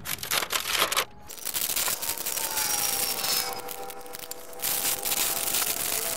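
Stiff masking paper crinkling and rustling as hands press and tuck it into a steel wheel around the taped center cap, with a short pause about a second in.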